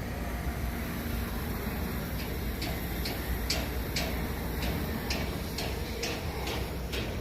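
Sharp, regular ticks, about two a second, starting about two seconds in, over a steady low rumble.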